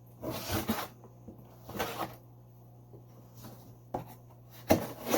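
Cardboard box being cut open with a knife: several short scraping, rasping strokes, the last one near the end the loudest.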